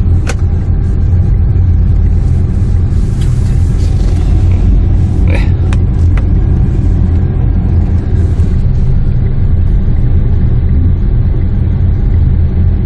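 Steady low rumble heard inside the cabin of a 2008 Renault Samsung QM5 while it idles, with a few faint clicks.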